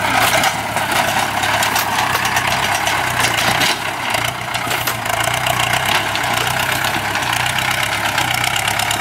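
Ford 6610 tractor's three-cylinder diesel engine running steadily as the tractor drives along.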